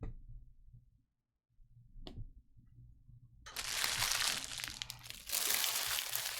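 Foil wrapper of a trading card pack being torn open and crinkled, starting about three and a half seconds in, after a couple of short clicks.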